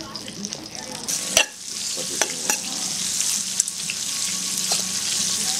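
A spoon stirring and whipping cream cheese and canned corn in a stainless steel pot, scraping with sharp knocks against the pot, the loudest about a second and a half in. A steady frying sizzle runs underneath.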